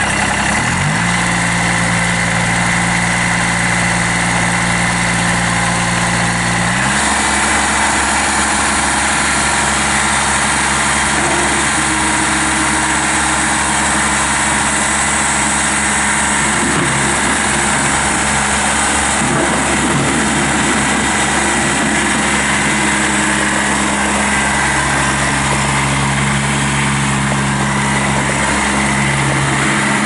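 2005 Kubota BX23 sub-compact tractor's three-cylinder diesel engine running steadily as the tractor is driven. Its speed rises about a second in and shifts again about seven seconds in.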